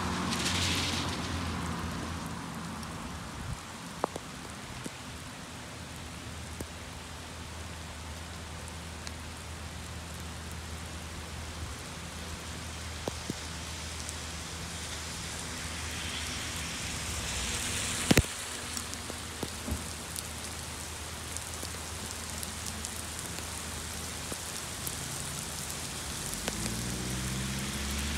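Heavy rain falling steadily on a street and pavement, with a few sharp ticks of drops. A car passes on the wet road with a tyre hiss in the first second, and another car's engine approaches, rising, near the end.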